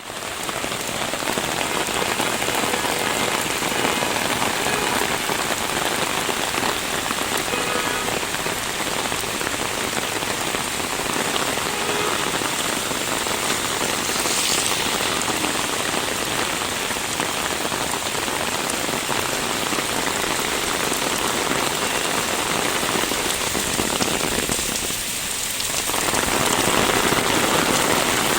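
Steady rain falling and pattering on the street and roofs, an even hiss that softens briefly near the end.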